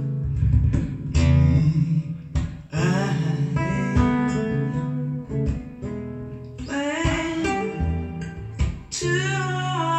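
Guitar music with singing, played from a vinyl record on a turntable.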